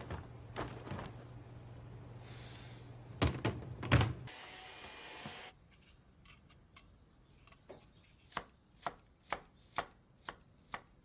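Kitchen sounds: a few loud knocks and clatters and a brief rush of noise, then a kitchen knife chopping on a cutting board in an even rhythm of about two strokes a second.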